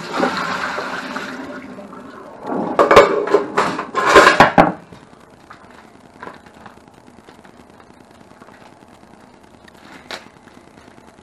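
Water poured out of a large pot into a stainless steel sink, splashing and tailing off over about two seconds. Then a burst of loud clattering and knocking as the metal pot is handled against the sink and set into the wire dish rack, followed by faint rustling of a plastic bag.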